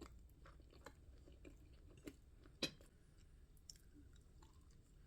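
Close-up chewing of a mouthful of pan-fried pierogi and sausage: quiet, wet mouth clicks, with one sharper click a little past halfway.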